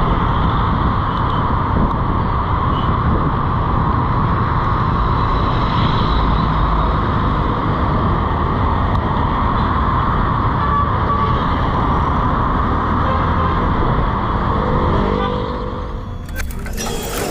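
A Honda single-cylinder automatic scooter riding along a road, heard from the rider's seat: steady engine and road noise with passing traffic. About a second before the end a short sudden noise cuts in.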